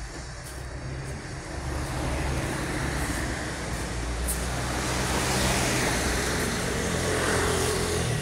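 Street traffic: motor vehicles passing on the road, growing louder about two seconds in and staying loud.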